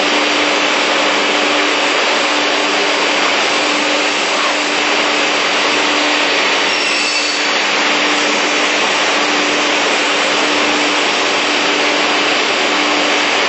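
ZPF beam saw running: a loud, steady mechanical whir from the saw machine, with a constant hum underneath.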